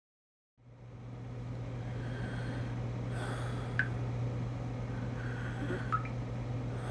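A steady low hum with a faint hiss fades in from silence about half a second in, with two short faint clicks, one about four seconds in and one about six seconds in.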